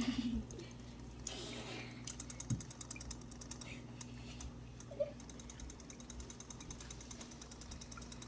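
Faint steady hum of a small aquarium, with rapid light mechanical clicking starting about two seconds in.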